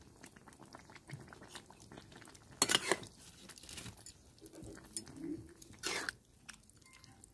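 Metal spatula stirring a thick chicken and potato curry in a steel pan: soft wet squelching with small scrapes against the pan, and two louder scrapes about two and a half and six seconds in.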